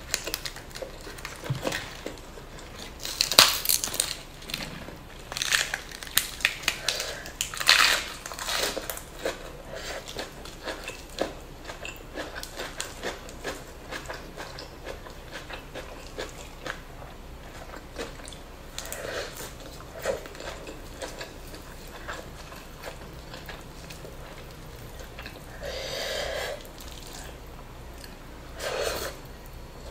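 Close-miked eating of spicy duck with rice and raw lettuce: chewing with many crisp crunches and wet mouth clicks, densest in the first ten seconds and sparser after, with a few short breaths later on.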